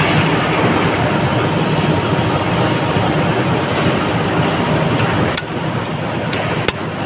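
Steady mechanical rumble, with sharp metal strikes starting about five seconds in, typical of hammering on a part during a gearbox teardown.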